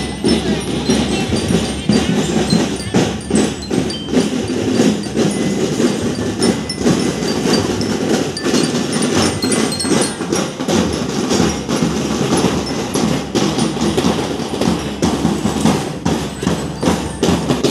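Parade band music: drums beating a dense, continuous rhythm, with short high ringing notes over it.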